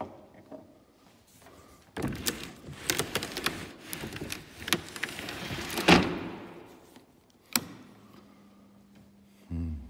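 Handling noise at the wooden console of a church electronic organ: rattling and sliding for about four seconds that ends in a loud thud, then a sharp click after which a faint steady low hum sets in, and a short low thump near the end.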